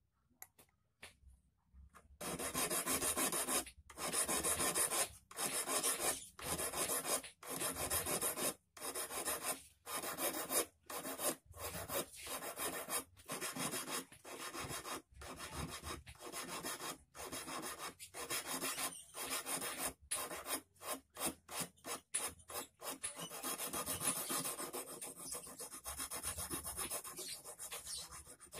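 Small hand file rasping on the steel wire of a hand-made eel hook clamped in locking pliers, in repeated short strokes: the hook's point being sharpened. The strokes start about two seconds in and come in quicker, shorter runs in the later part.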